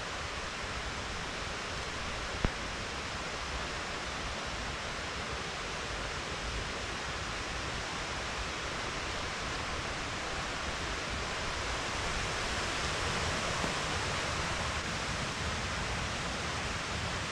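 Steady rushing hiss of a stream running, growing slightly louder in the second half, with one sharp click about two and a half seconds in.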